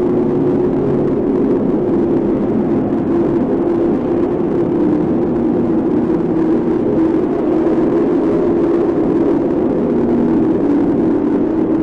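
Stomach growling: a steady, unbroken rumble with a wavering low hum running through it.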